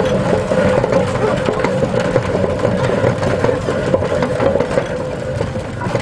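Steam road roller running as it moves along: a busy mechanical clatter over a steady drone.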